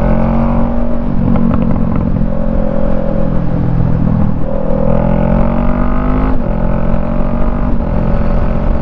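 Motorcycle engine pulling under acceleration, its pitch rising and then dropping back suddenly at an upshift about six seconds in, over steady wind rumble on the rider's microphone.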